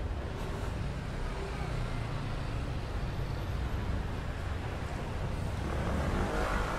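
City street ambience: a steady low rumble of road traffic, with people's voices coming in near the end.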